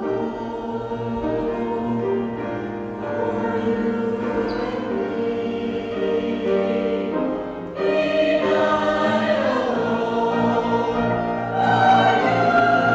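Mixed choir of men and women singing. The choir grows louder about eight seconds in and again near the end.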